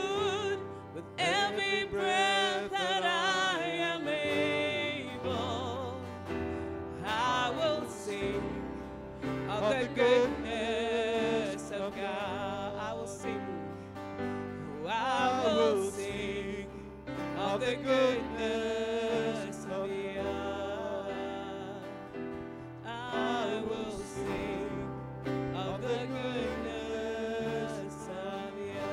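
A live worship band plays on after the song's last lyrics, holding sustained keyboard chords, while a singer's voice glides up and down over them.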